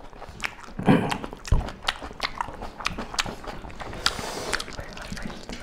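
People eating mutton and rice with their hands: chewing, lip smacks and fingers squelching food on plates, a run of small wet clicks, with a dull knock about one and a half seconds in.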